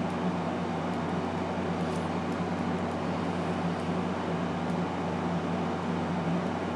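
Steady machine hum with a constant hiss, unchanging throughout, with a few faint small clicks.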